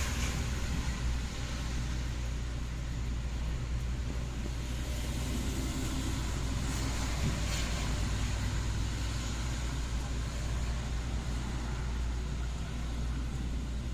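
A steady low rumble of outdoor background noise, even throughout with no distinct events.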